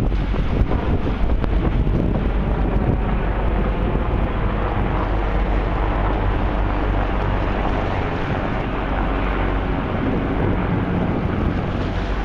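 Wind blowing across the microphone: a steady, loud rumble heaviest at the low end, with an even rush above it.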